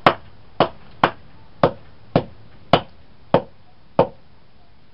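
Hammer striking a Samsung Juke phone: eight sharp blows at a steady pace of about two a second, smashing it apart.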